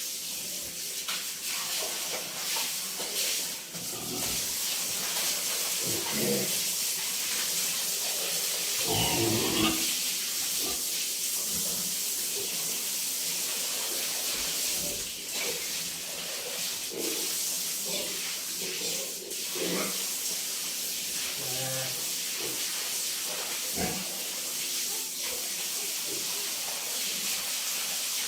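Pigs grunting and squealing now and then over a steady hiss of spraying water.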